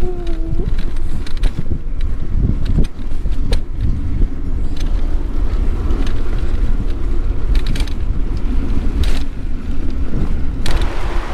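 Bicycle rolling along on a ride, with rattling clicks and creaks from the bike over a heavy low rumble of wind on the microphone; a short squeal right at the start.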